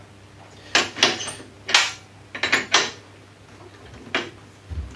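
Metal tools and router bit clinking against the router's collet and body during a cutter change: a handful of sharp clicks and knocks at irregular intervals, with a soft low thump near the end.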